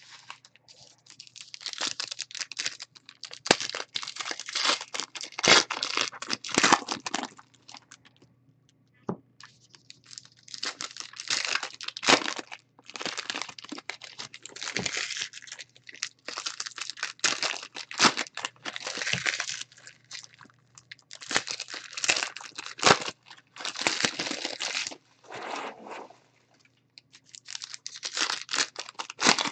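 Foil football card pack wrappers being torn open and crinkled by hand, in crackly spells a few seconds long with short pauses between packs.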